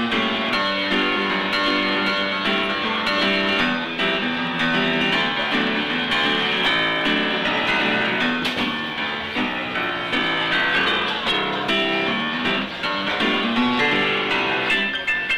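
Upright piano played live, a continuous run of notes and chords.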